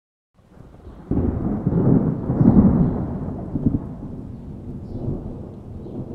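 Deep rolling rumble of an intro sound effect, coming in suddenly about a second in, loudest around two and a half seconds, then slowly dying away.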